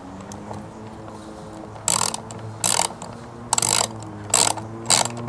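Socket ratchet clicking in short bursts on its back-strokes as it turns out an 8 mm nut from the fuel filler surround. The bursts start about two seconds in and come about five times.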